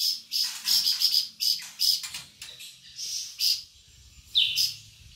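A flamboyan, a small insect-eating songbird kept by Indonesian songbird hobbyists, singing vigorously in a rapid string of short, sharp, high-pitched chirps, about two to three notes a second, with brief pauses between phrases.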